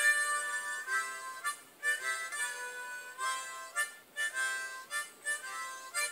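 Blues harmonica playing a quick run of short notes and chords in a steady rock-blues rhythm.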